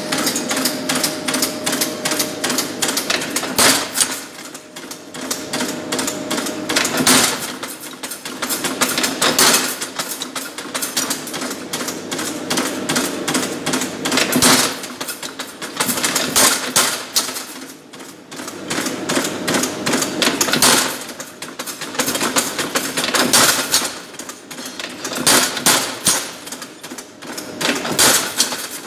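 Mechanical power hammer running, its ram pounding a hot iron collar on a forming tool in rapid repeated blows, with heavier strikes every few seconds.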